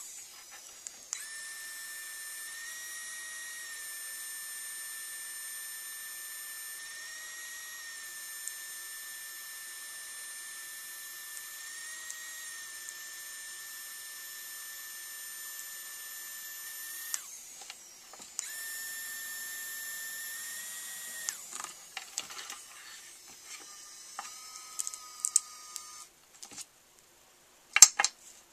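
3Doodler 3D printing pen's drive motor running with a steady high whine as it extrudes plastic. The whine shifts pitch in small steps, cuts out briefly twice and stops about 21 seconds in. Near the end come a couple of sharp loud clicks as the pliers are picked up.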